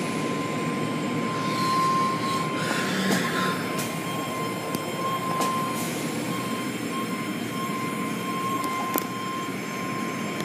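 Automatic tunnel car wash in operation: cloth brushes and water spray swishing over a car as the machinery runs, with a steady whine throughout and a few faint clicks.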